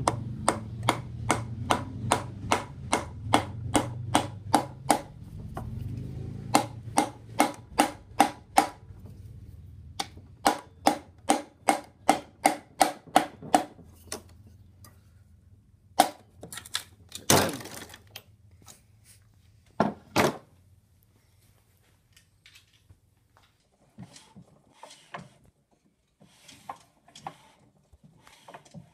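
Piston being tapped down through a ring compressor into the cast-iron cylinder of a Kohler K341 single-cylinder engine with a wooden tool handle: quick knocks, about two or three a second, in three runs, then a few separate heavier knocks as it goes in.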